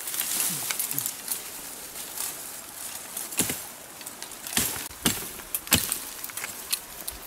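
Machete chopping at a thin sapling trunk, several sharp blows in the second half, over the rustle of leaves and branches being pushed through.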